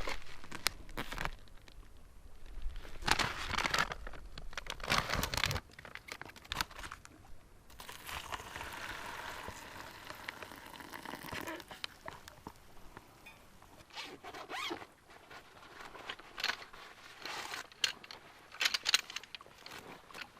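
Handling of camping gear: irregular rustling, crinkling and scraping strokes, with one longer zip-like scrape lasting about four seconds from around eight seconds in.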